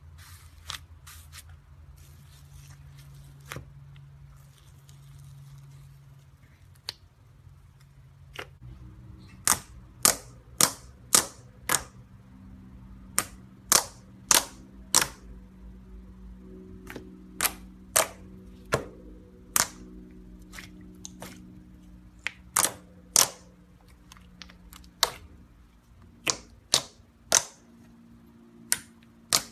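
Hands squeezing and poking thick slime, popping trapped air pockets in loud, sharp clicks, about twenty of them from about nine seconds in. Before that, only faint scattered crackles as fingers poke fluffy slime in a tub.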